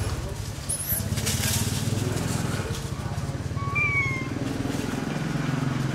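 Steady low drone of an engine running, with a brief high whistled call about four seconds in.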